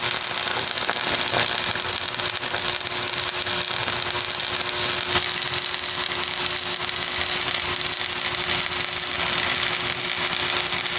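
Stick arc welding on a steel pipe post: the electrode's arc gives a steady, dense crackling sizzle as a bead is laid over a small crack, stopping at the very end.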